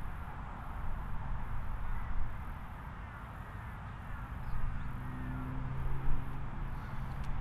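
Outdoor ambience: wind rumbling on the microphone, a steady low hum underneath, and a few faint bird calls.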